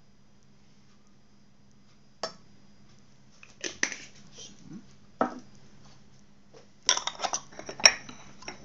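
Glass jam jar and its lid clinking and knocking against a ceramic saucer as the jar is handled and closed: a few separate clicks, then a quick cluster of knocks near the end with one sharp, loud click.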